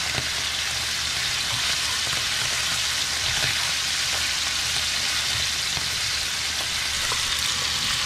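Slices of whitetail venison backstrap and tenderloin sizzling as they brown in hot olive oil in a cast-iron skillet: a steady frying hiss with small scattered crackles.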